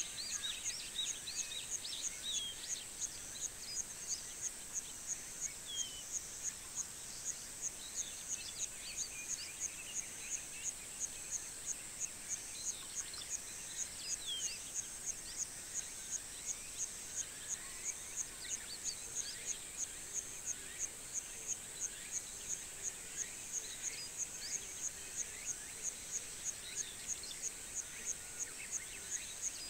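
Rural summer-morning ambience: a high insect buzz pulsing evenly a little over twice a second, with many small birds chirping and twittering.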